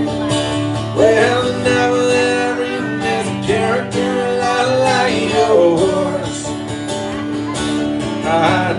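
Live country song played by a duo: two acoustic guitars strummed steadily, with a sung melody line over them.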